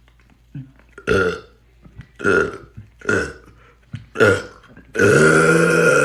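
A man burping on purpose: four short burps about a second apart, then a long, loud burp on a steady deep pitch from about five seconds in.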